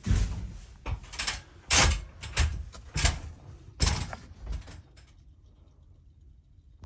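A series of irregular knocks and thuds, roughly one or two a second, that stop about five seconds in.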